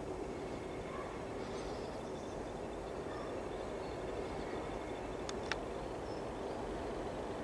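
Two DB class 218 diesel-hydraulic locomotives working in double traction, a steady drone with a low hum under outdoor noise. Two sharp clicks sound about five seconds in.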